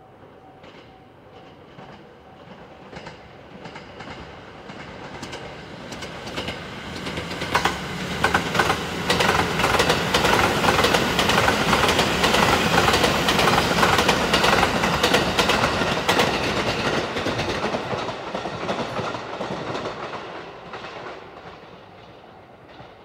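JR 285 series "Sunrise Seto" sleeper train passing through a station without stopping. Its running noise swells as it approaches and peaks with a rapid clickety-clack of wheels over rail joints as the cars go by, then fades as the train moves away.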